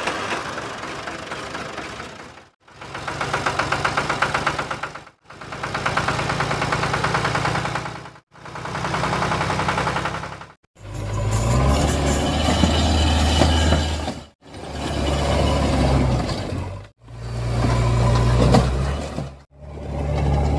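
Tractor engine sound effects laid over the picture in a string of about eight short clips, each two to three seconds long and cut off abruptly. From about halfway on the engine sound is deeper and heavier.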